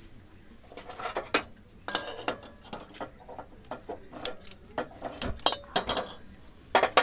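A hand-held spark gas lighter clicking under a steel wok to light a gas stove burner, with sharp metallic clicks and clinks of metal against the wok and stove coming in irregular clusters.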